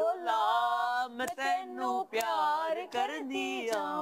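Unaccompanied singing of a Punjabi folk melody: one voice drawing out long notes that bend and waver, with brief breaks between phrases.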